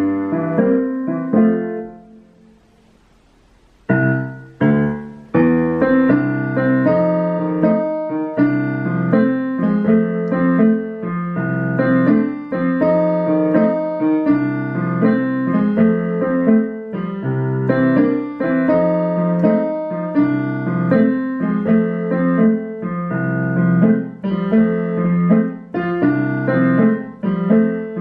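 Digital piano on its piano tone playing a blues tune with both hands. The playing stops about two seconds in and starts again about two seconds later, then continues steadily.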